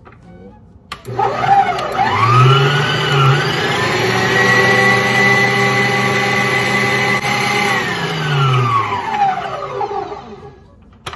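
Electric stand mixer's motor and wire whisk spinning up, running at a steady speed, then winding down and stopping, whisking cream cheese into a whipped egg-white dough.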